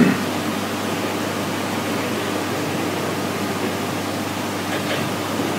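Steady room tone in a lecture hall: an even hiss with a faint low hum, and a brief knock right at the start.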